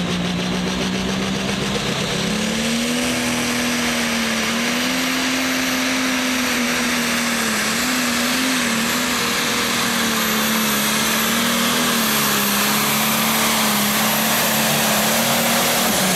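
John Deere 4450 Pro Stock pulling tractor's turbocharged diesel at full throttle, pulling the sled down the track. Its pitch steps up about two seconds in, then holds with a slight waver under load, and drops off sharply at the very end.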